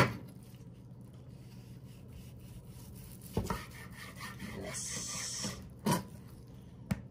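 A long slicing knife sawing through smoked tri-tip, scraping through the crusted meat. The blade knocks sharply on the cutting board a few times as each slice comes free.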